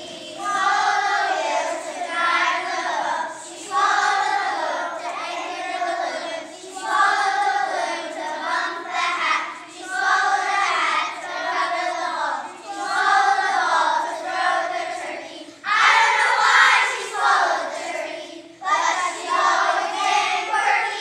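A children's choir singing a song together, in phrases of a second or two with short breaks between them.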